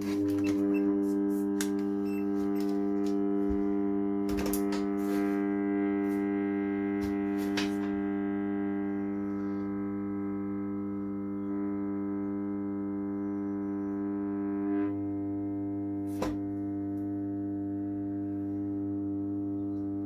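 Microwave oven transformer humming under a dead short, its heavy-cable secondary driving hundreds of amps through a steel threaded rod: a steady buzzing hum with many overtones, with a few sharp clicks. About three-quarters of the way in, the hum's tone shifts.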